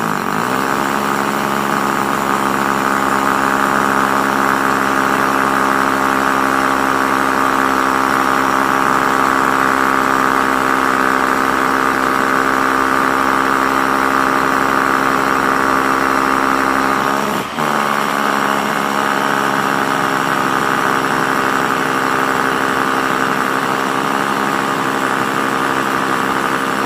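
Corded rotary hammer drill hammer-drilling into concrete with gravel aggregate, running steadily under load with a steady motor whine; about two-thirds of the way through it briefly slows and picks up again. Slow going, which the user puts down to a gravel stone in the way of the bit.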